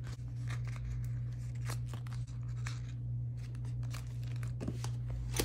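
Glossy sticker sheets in a spiral-bound sticker book rustling and crinkling as the pages are flipped through by hand, in short irregular rustles over a steady low hum.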